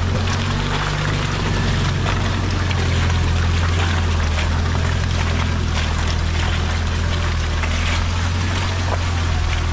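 Mahindra Thar CRDe's diesel engine running at a steady, unchanging pitch as the jeep crawls along a muddy track, with tyres squelching and splashing through wet mud and small clicks from stones and grit.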